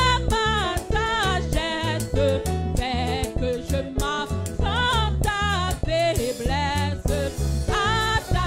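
A woman singing a gospel worship song into a microphone, her voice bending and wavering through long held notes, over band accompaniment with a steady beat.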